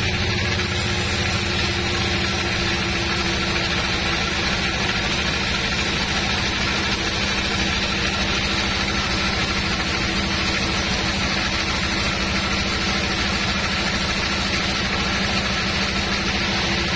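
Sawmill band saw running steadily as its blade cuts along a teak log: a constant machine hum under a hiss that stops shortly before the end.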